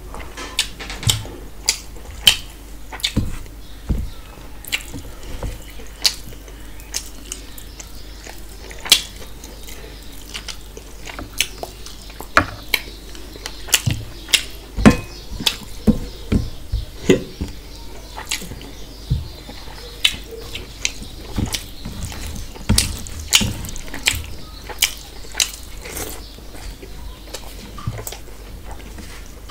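Close-miked eating sounds: wet chewing and lip smacking of rice and mutton curry eaten by hand, with irregular sharp wet clicks about once or twice a second.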